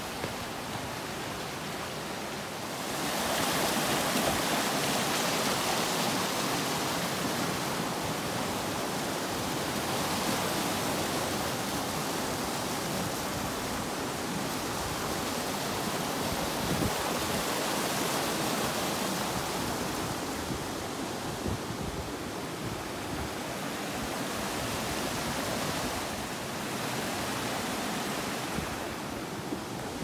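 Waterfall rushing into a rocky pool, a steady hiss of falling water that grows louder about three seconds in.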